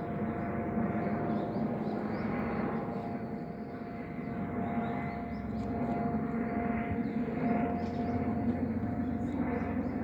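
Helicopter flying overhead: a steady drone with a held whining tone, swelling and easing slightly. Faint short chirps of small wild birds sound above it.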